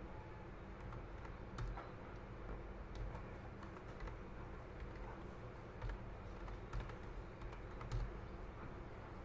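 Computer keyboard being typed on slowly: scattered, irregular keystrokes over a low steady hum.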